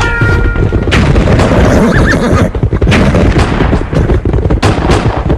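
Cavalry charge sound effect: a dense low rumble of many galloping horses, broken by repeated gunshots and cannon booms, some in quick pairs. The held notes of a bugle call cut off right at the start.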